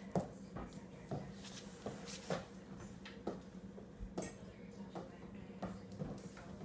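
A three-legged kitten's paws landing and scampering on a hard floor as she chases a bouncy ball: about a dozen light, irregular taps and knocks, the loudest near the start. A steady low hum runs underneath.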